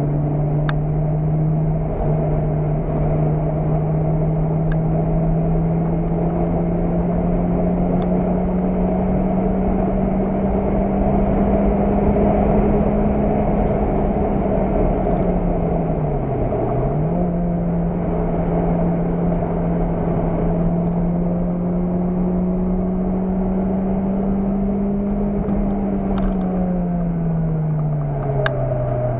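Car engine heard from inside the cabin under hard acceleration, its note climbing slowly. About sixteen seconds in it dips sharply and comes straight back, then climbs again and falls away steadily near the end.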